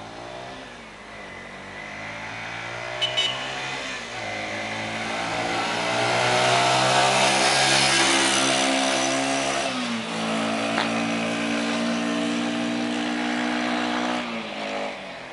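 1994 Yamaha SR125's single-cylinder four-stroke engine accelerating past, its pitch climbing and stepping down about four and ten seconds in. It is loudest about seven to eight seconds in, then fades as the bike rides away. There are a couple of sharp clicks about three seconds in.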